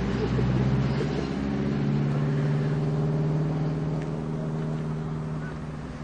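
VW Golf Mk3 VR6's narrow-angle V6 engine idling steadily. Its note steps up slightly after about a second and a half, then holds even.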